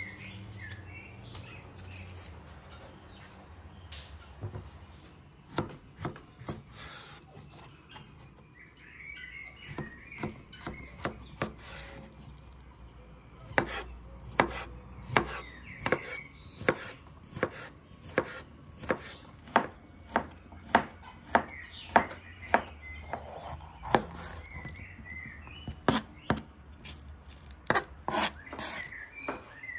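Knife chopping on a wooden cutting board: a few scattered strokes at first, then a steady run of sharp chops at about one and a half a second through the second half. Birds chirp faintly in the background.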